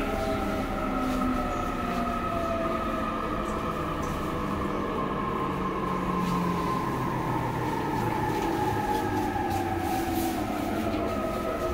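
Electric commuter train heard from inside the car, its traction motors' whine sliding slowly down in pitch as it brakes into a station, over the rumble of the wheels on the rails.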